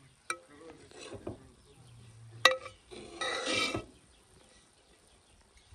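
A slotted metal spoon scooping and turning cooked pilaf rice in a metal pot. There is a few light clicks, one sharp clink against the pot about two and a half seconds in, then a short scraping rustle through the rice.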